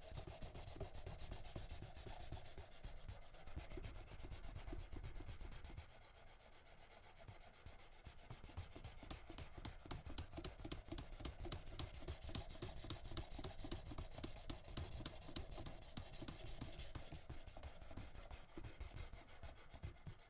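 Knife edge stroked back and forth on an oiled diamond sharpening stone in a Worksharp Precision Adjust guided sharpener: a faint, steady run of quick rasping strokes, quieter for a few seconds about six seconds in. The second side of the blade is being ground, with no burr raised yet.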